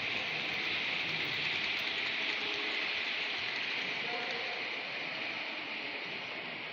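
Steady rushing noise of OO-gauge model trains running on the layout's track, the wheels rolling over the rails with the motors whirring.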